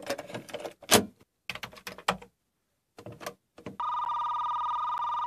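Rapid clacking keystrokes on a Commodore 64 keyboard in four short flurries, then a steady electronic tone with a buzzy edge starts about four seconds in and holds.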